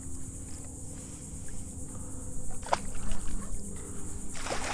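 Hooked tarpon splashing and thrashing at the surface beside a kayak, the splashing picking up in the second half, over a steady high-pitched insect buzz.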